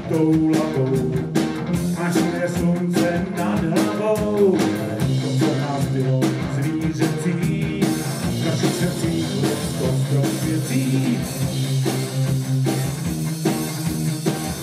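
Live rock band playing an instrumental passage: electric guitar playing lead lines with bent notes over bass guitar and a drum kit.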